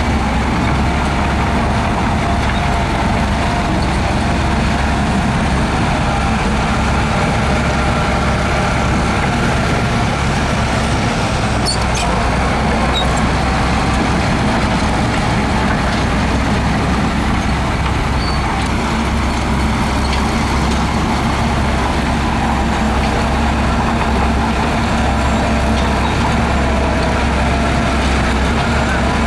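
Heavy diesel engine of earthmoving machinery running steadily with a deep low drone, with a couple of faint clicks about twelve seconds in.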